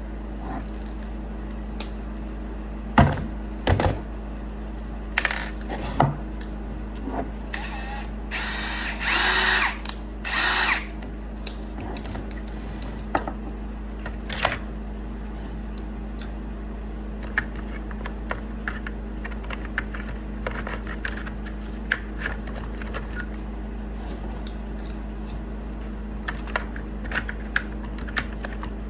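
Workshop tool sounds while an axe head is forced onto its handle. A few sharp knocks come early, then two short whirring, grinding bursts about a third of the way in, then scattered light clicks, all over a steady hum.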